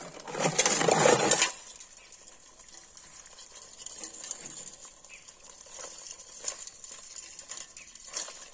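Water and live crabs poured from a plastic bottle into a steel bowl, a short rushing splash lasting about a second. Then faint scattered clicks and scrapes of the crabs' legs on the metal as they move about in the bowl.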